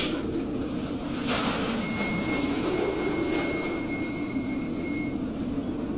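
Storm wind and heavy seas heard aboard a tanker: a steady rushing rumble, with a brief louder rush a little over a second in. A thin high whistle is held for about three seconds in the middle.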